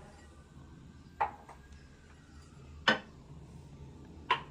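Three sharp knocks or clinks of hard objects being handled, about one and a half seconds apart, over a faint low room hum.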